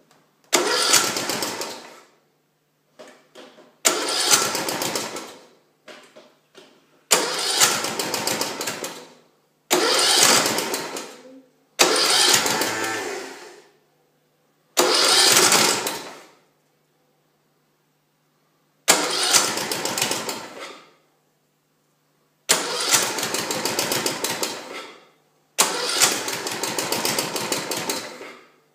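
Briggs & Stratton Intek 15.5 HP OHV 500cc engine being cranked over and over, nine short tries of a second or two each, without settling into a run. It is hard to start because the choke can't be used with no throttle cable fitted.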